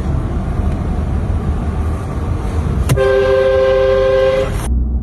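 Steady low rumble of a car on the move. About three seconds in, an aftermarket train horn fitted to the car sounds one blast of about a second and a half: a steady two-note chord that cuts off sharply.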